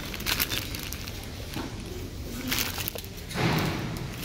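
Thin plastic bags crinkling and rustling as bagged diecast toy cars are handled and shuffled in a plastic bin, with a louder rustle about three and a half seconds in.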